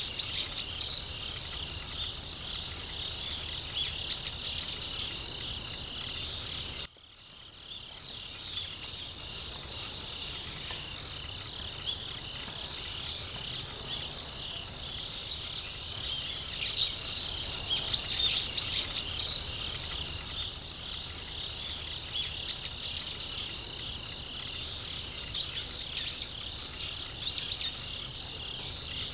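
Many small birds chirping and calling, quick high notes in clusters over a steady high background chorus. About seven seconds in the sound cuts out suddenly and fades back in.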